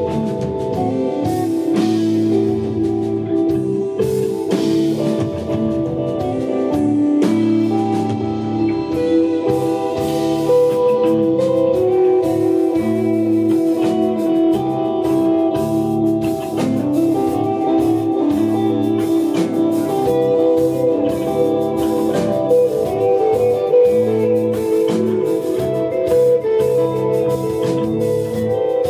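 A desert rock band playing live: electric guitar lines over bass and drums, with cymbal hits throughout.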